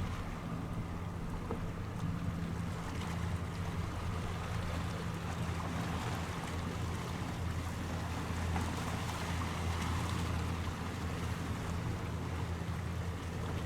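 A boat's engine running with a steady low hum, under a constant wash of wind and water noise.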